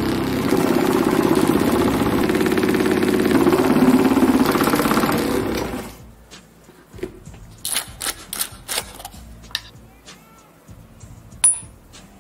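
A small electric vibrating motor buzzing with a fast rattle as it shakes a small glass bottle of grains, stopping abruptly about six seconds in. Light clicks and glass taps follow, with one sharp high clink near the end.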